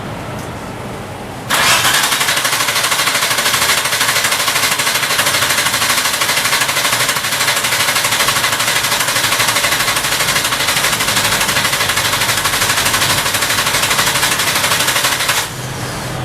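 A 1997 Nissan Cefiro's engine being cranked on the starter for about fourteen seconds without catching, then stopping. It cranks but won't fire because the crankshaft position sensor at the bell housing sends no signal, so the coil and injectors get no trigger.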